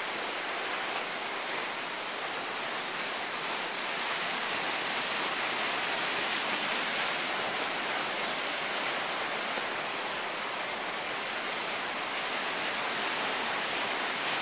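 Ocean surf breaking and washing over lava rocks: a steady hiss of churning water that swells gently.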